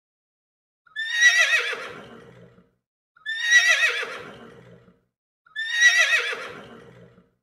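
Horse whinnying three times, each a high, quavering whinny that trails off over about a second and a half. The three calls are exactly alike, a single whinny repeated.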